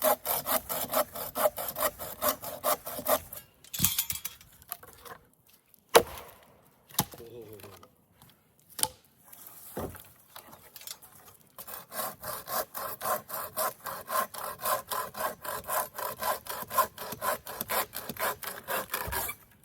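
Hand saw cutting through wood in quick, even strokes, about four a second. The sawing stops about three seconds in, a few sharp knocks follow, and it starts again about twelve seconds in and runs until shortly before the end.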